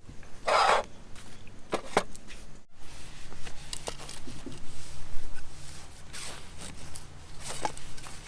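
Camping gear being handled during campsite setup: scattered rustles, clicks and light knocks.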